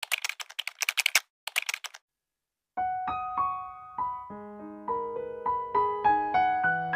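A keyboard-typing sound effect, rapid clicks for about two seconds, then a short silence. Piano music begins about three seconds in, single notes ringing and overlapping.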